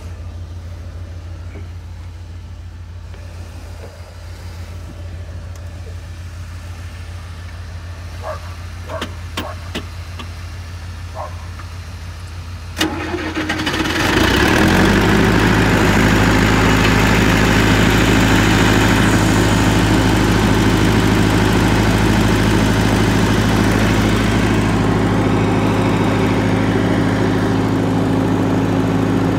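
A low steady hum with a few faint clicks, then about 13 seconds in the diesel engine of a John Deere 450 crawler loader starts. It catches and picks up within a second or two, then settles into a loud steady run.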